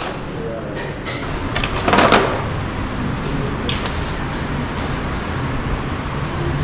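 Workshop work noises during a motorcycle service: a short loud rushing sound about two seconds in and a sharp click near the middle, over a steady low rumble.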